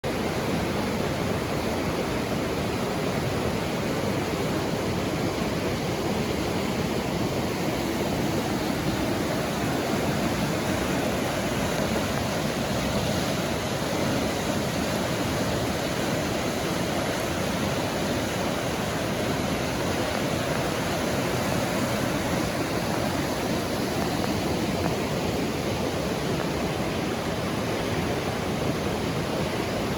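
A rushing river: a steady roar of fast-flowing water.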